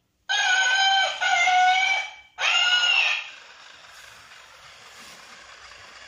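Plush toy cat playing its electronic meow three times in a row, each call starting and stopping abruptly, the last ending about three seconds in. A faint steady hiss follows.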